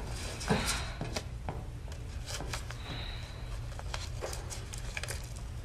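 Scattered light clicks and knocks of small objects being handled, with a louder rustle about half a second in, over a low steady hum.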